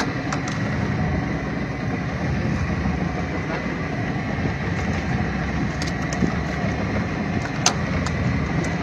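Small boat's outboard motor running steadily, with a faint constant high whine over its low drone. A few sharp clicks or knocks cut through, the loudest near the end.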